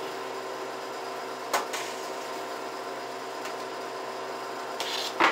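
Steady hum of a Harvest Right home freeze dryer running with its chamber pre-cooled for loading. A sharp click comes about a second and a half in, and a louder clatter near the end as the food trays are handled at the open chamber.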